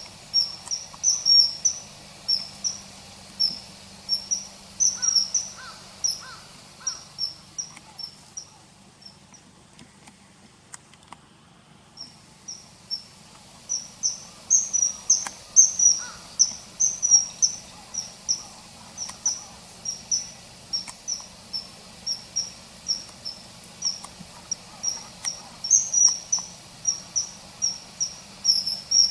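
Common kingfisher calling: a run of short, sharp, high-pitched whistles, two or three a second, that break off for a few seconds near the middle and then resume.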